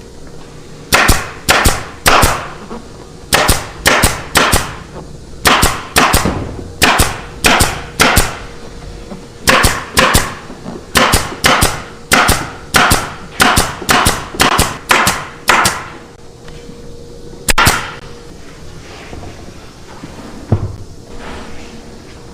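Repeated sharp impacts from work on a sofa frame: over thirty strikes in quick runs of three to five, each with a short ring, then one last strike after a pause. A faint steady hum runs underneath.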